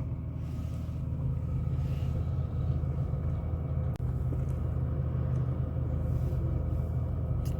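Vehicle engine idling steadily at a constant low rumble.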